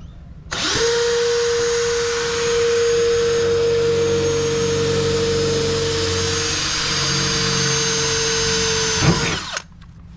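Cordless drill running at a steady high speed, drilling into the metal tub of a ute. The motor spins up about half a second in and winds down with a falling pitch near the end.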